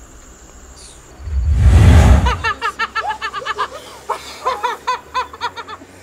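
A sudden loud whoosh with a deep rumble, about a second long, then rapid high-pitched laughter in quick 'ha-ha' bursts over a faint chirring of crickets.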